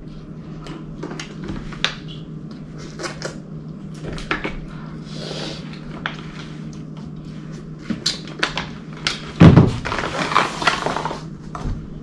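Food being handled in an aluminium foil takeaway tray: scattered clicks and crinkles of the foil as food is picked out and eaten, with a louder knock and a longer rustle of the tray about nine and a half seconds in.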